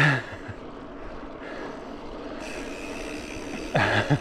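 Steady rush of a bicycle riding along at night: tyre and wind noise on a chest-mounted camera microphone. A short loud burst comes right at the start and another near the end.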